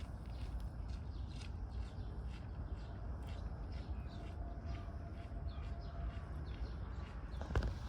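Low wind rumble on the microphone outdoors, with many short high ticks or chirps running through it and one sharp click near the end.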